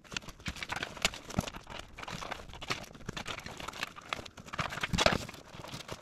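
Nylon fabric and webbing rustling and scraping as a small pouch is strapped onto a MOLLE battle belt, with many small clicks and knocks; the loudest knock comes about five seconds in.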